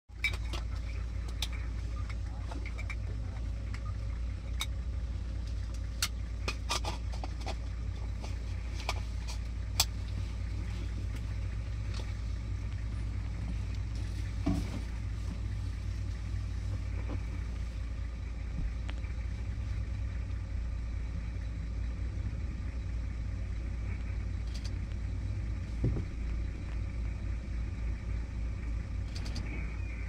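Steady low rumble of an idling vehicle engine, with scattered sharp clicks in the first ten seconds and a couple of soft knocks later on.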